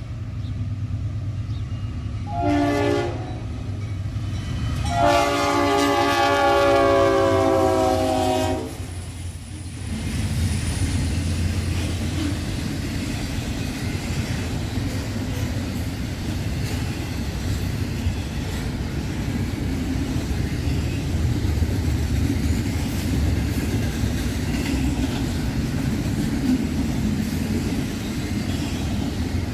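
Diesel freight train locomotive sounding its chord horn for the crossing, a short blast and then a long one, over the engine's low rumble. The train then runs past with a steady rumble and rattle of wheels on rail.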